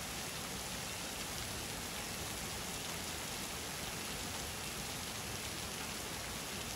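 Steady rain pouring onto flat roofs, with the first small hailstones falling in it, heard as an even, continuous hiss.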